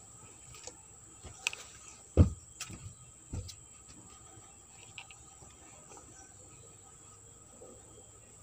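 Plastic tub being handled: a few knocks and bumps between about one and four seconds in, the loudest a dull thud about two seconds in. A steady high-pitched insect trill runs underneath.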